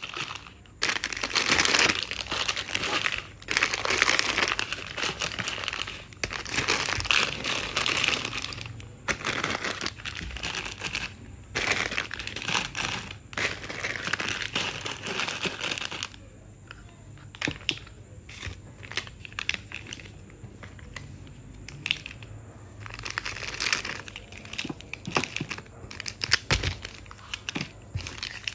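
Plastic snack wrappers crinkling and rustling as packets are handled, dense and loud for the first half, then quieter with scattered clicks and taps.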